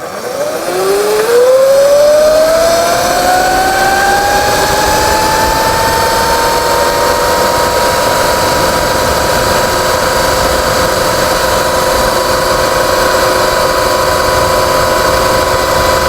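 Sur-Ron X electric dirt bike accelerating flat out on its stock chain: the motor and chain drive whine, rising in pitch over the first several seconds and then holding steady at top speed. Steady wind noise runs underneath.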